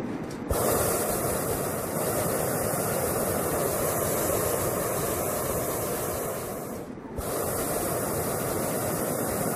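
Hot-air balloon's propane burner firing with a steady hiss that starts suddenly, cuts off briefly about seven seconds in, then fires again.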